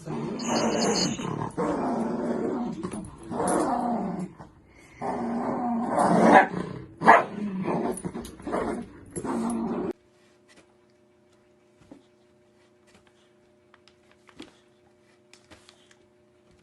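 A dog growling and grumbling in long drawn-out runs of about a second each, loud and pitched, which cuts off abruptly about ten seconds in. The rest is quiet: a faint steady hum with scattered faint ticks.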